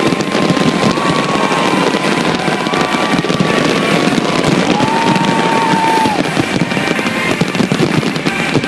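Fireworks display going off in a dense, continuous mass of bangs and crackles. A few held whistling tones sound over it.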